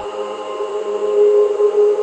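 Background music made of long held tones, with a choir- or chant-like sound.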